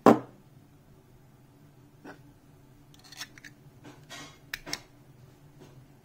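A sharp metallic clack right at the start, then a few smaller metal clicks and taps as the chrome hand warmer's burner and case are handled.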